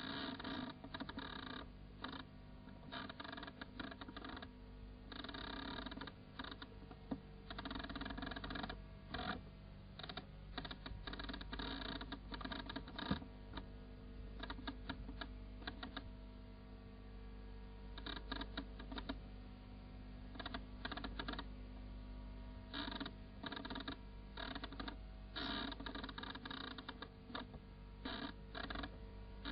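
Irregular bursts of rapid clicking over a steady hum.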